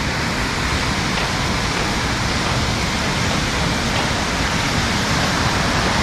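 Waterfall's water rushing in a steady, even hiss with no breaks.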